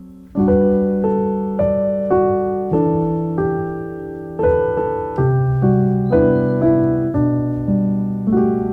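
Background piano music: calm chords and single notes struck at an unhurried pace, each left to ring and fade.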